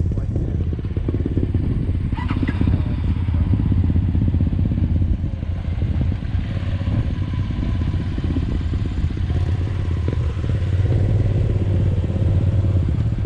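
Off-road vehicle engine running steadily at low revs.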